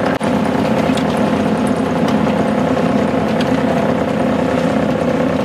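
Sailboat's inboard auxiliary engine running steadily under way, a constant drone.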